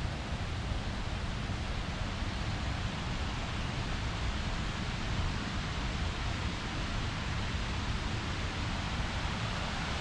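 Steady, even rushing of the river and waterfall in the gorge, with no breaks or distinct events.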